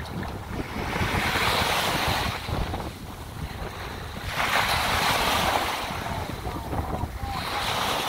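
Small waves washing up onto a sandy shore, two surges of hiss a few seconds apart, with wind buffeting the microphone.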